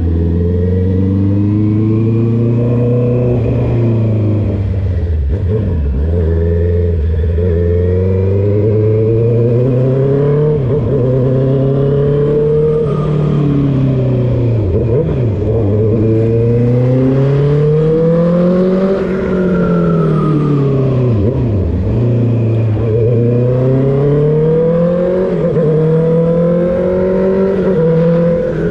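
Honda CB650R's inline-four engine running loud through a full aftermarket exhaust with the dB killer removed, under way: the engine note climbs and falls again and again as the bike accelerates and slows, with short dips between the climbs.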